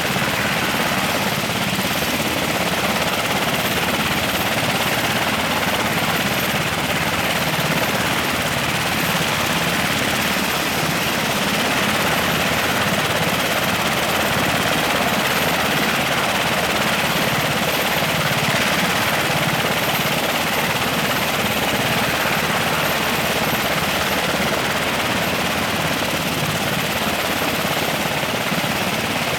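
Military helicopter's turbine engines and rotor running, a loud, steady noise with a thin high whine on top that holds without change.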